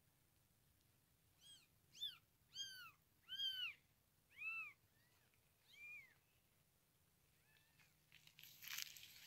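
Newborn kittens mewing: about seven short, high-pitched mews in a row, each rising and falling in pitch, with a crackling rustle near the end.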